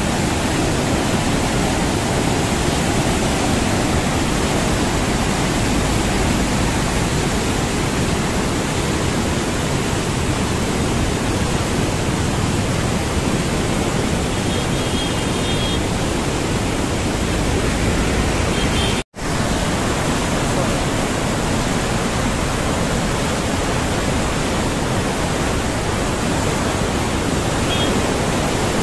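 Floodwater being released through the open gates of a river barrage: a loud, steady rush of churning water. It cuts out for an instant about two-thirds of the way through.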